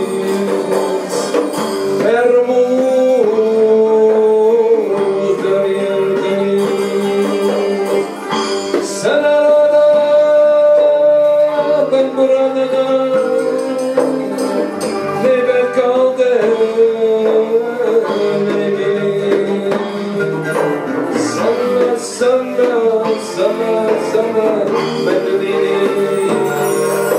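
Live Middle Eastern ensemble music from oud, double bass and percussion, with a melody held on long notes that step between a few pitches over a steady rhythm.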